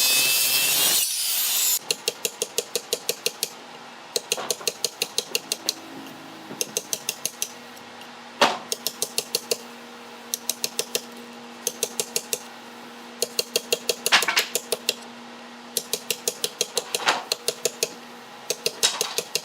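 A power tool cutting wood stops a couple of seconds in. Then come runs of quick, sharp taps, about five a second in groups of six to eight with short pauses, typical of a mallet striking a carving chisel into wood.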